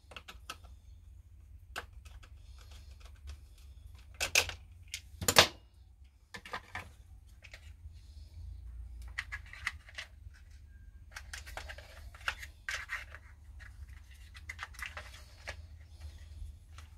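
Hard plastic clicking, knocking and scraping as a chainsaw's air filter and filter cover are handled and fitted together. There are two louder knocks at about four and five seconds in, then a stretch of rustling and scraping.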